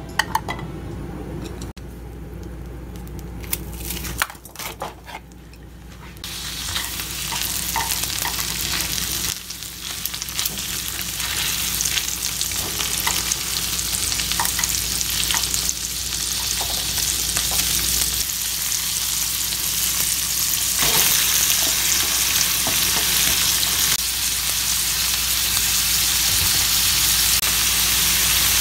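Butter and cubes of meat sizzling in a frying pan as they are sautéed. The sizzle sets in about six seconds in and grows steadily louder.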